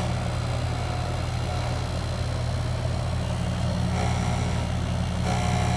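Goodman heat pump outdoor unit running, a steady hum of the compressor and condenser fan. It runs but puts out no warm air, which the technician puts down to a probable refrigerant leak.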